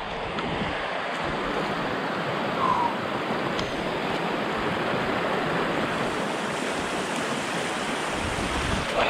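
Steady rushing of a fast, muddy stream of runoff pouring down a trail.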